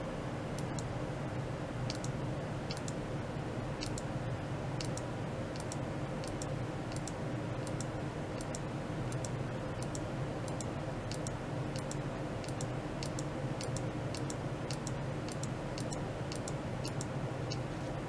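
Steady equipment hum with several low tones, overlaid by irregular sharp high-pitched ticks, two or three a second.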